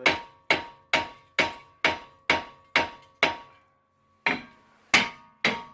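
Hammer blows on a front brake rotor seized to the hub by rust, driving it off a 2009 Toyota RAV4. About eight ringing metal strikes come at roughly two a second, then after a pause of about a second, three more.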